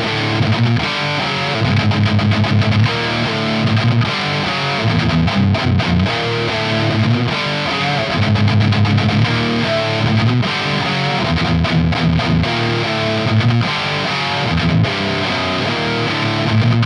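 Distorted electric guitar through a Laney GH100TI all-tube amplifier at high gain with no boost in front, playing a heavy chugging riff with triplets. The tone is sludgy, with a saggy low end that swells on certain notes.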